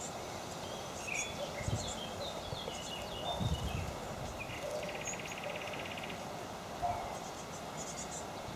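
Small songbirds chirping and calling in short high notes, with a brief buzzy trill about five seconds in, over steady outdoor background noise. A few soft low thumps sound in the first half.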